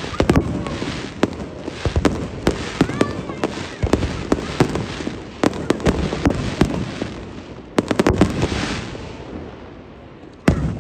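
Fireworks display: aerial shells bursting in quick, irregular succession, each bang followed by crackle and echo. The bangs die down near the end, then one more loud bang comes just before it ends.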